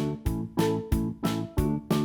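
Background music track with a steady beat, drums and keyboard or guitar notes.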